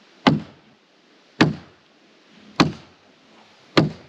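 Hammer blows driving a stake to hold the concrete foundation forms: four sharp strikes, a little over a second apart.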